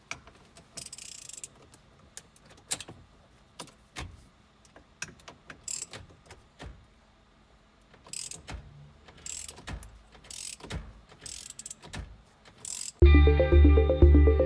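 Scattered clicks, knocks and short rasping sounds of hand tools working on a car's steering wheel, starting to remove the airbag clock spring. Loud music with a steady beat comes in near the end.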